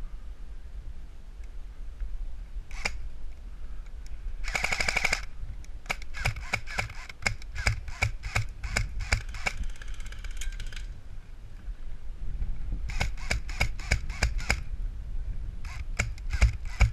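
Airsoft electric guns firing in an exchange: a single shot, then a short full-auto burst, then strings of rapid shots with pauses between them.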